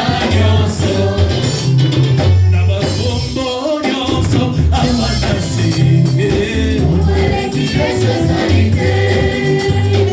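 Gospel worship music: voices singing over a band with a strong, pulsing bass line.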